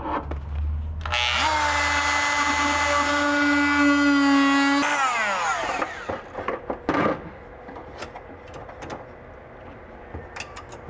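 A Dremel rotary tool fitted with a cutting blade starts up about a second in and runs as a steady whine for about four seconds, cutting away fiberglass, then spins down with a falling pitch. A few light clicks and knocks follow.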